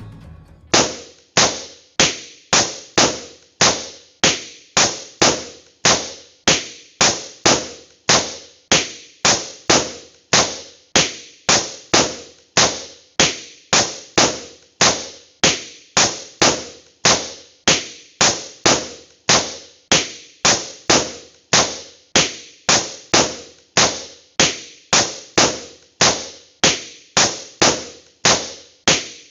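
Balloon pops repeated at a steady, even pace of about two a second, each a sharp bang with a short decaying tail.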